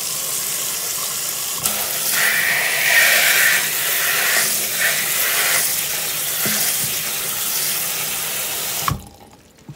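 Kitchen tap running onto chickpeas in a plastic colander in a stainless steel sink: a steady rush and splash of water that gets louder about a second and a half in, then cuts off suddenly near the end as the tap is shut off.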